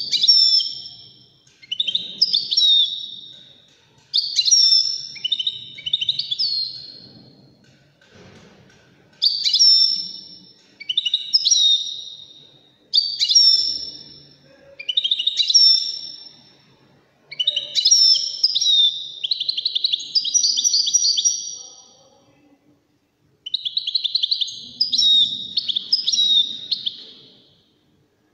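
European goldfinch singing: a run of fast, high, twittering phrases of about two to three seconds each, with short breaks between them and one longer pause near the end.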